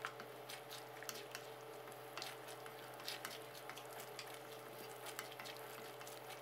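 Thick coconut-milk panang curry simmering in a pan: faint, irregular bubbling pops and clicks as a wooden spatula stirs it, over a steady faint hum.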